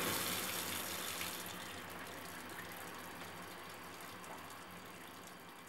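Water running from a single-handle kitchen faucet into a stainless steel sink, a steady splashing stream that slowly fades. The faucet is being test-run after a new Moen 1225 cartridge was fitted.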